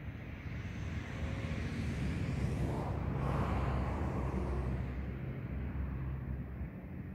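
A road vehicle driving past: tyre and engine noise swells to a peak about three seconds in, then fades away.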